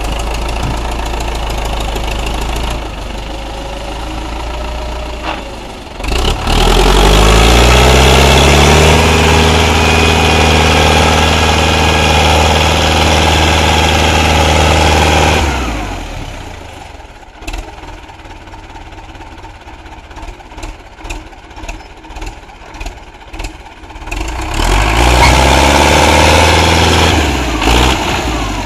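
Belarus tractor's diesel engine idling, then revved hard twice, each time rising in pitch and holding loud for several seconds, as it strains to pull a heavily loaded sugarcane trolley. Between the two pulls it drops back to a quieter idle with a string of sharp clicks.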